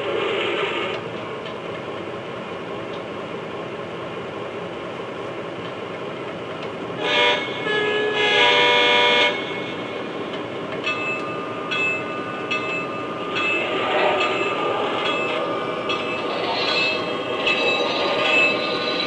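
Lionel Legacy RailSounds from an O scale Pennsylvania Railroad Trainmaster diesel model: the recorded diesel engine sound running steadily, with the horn giving a short toot about seven seconds in, then a longer blast. Later the locomotive sound carries on with a regular high ticking as the model gets under way.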